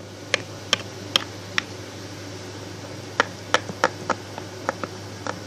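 Small plastic toy figures tapping against a hard surface. There are four light, evenly spaced taps, then a quicker, irregular run of taps starting about three seconds in, over a low steady hum.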